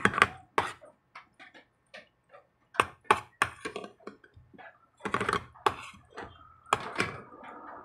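A metal spoon knocking and scraping against a plastic bowl while eating, in a string of sharp clicks and taps, with louder clusters near the start, around three seconds in and again around five to seven seconds in.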